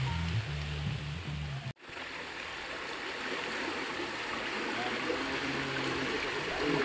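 Background music over rain cuts off abruptly just under two seconds in. Then comes the steady rush of a shallow, rocky stream flowing.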